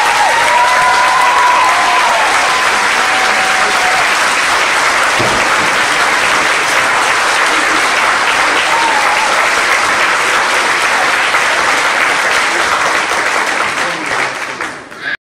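Audience applauding loudly after the dance, with a long cheering call from someone in the crowd in the first few seconds; the applause cuts off suddenly near the end.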